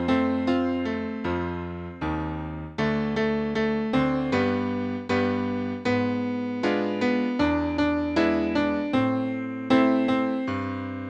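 Piano music: a keyboard, most likely an electric piano, playing a melody over chords, with notes struck at a steady pace, each fading away after it is hit.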